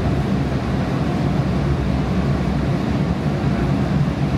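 Steady low rumble and hum inside a Siemens S700 light-rail car as it stands at a station platform.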